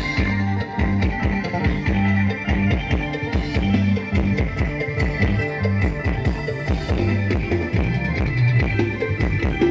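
Band music played loud through a sound truck's PA system during a sound check: a steady drum-kit beat over held bass notes.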